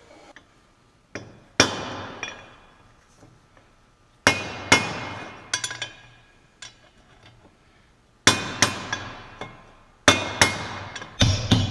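Hammer blows on a steel punch, knocking a bearing race out of a Salisbury differential's cast housing: a dozen or so sharp metallic strikes in irregular clusters, each ringing out and dying away.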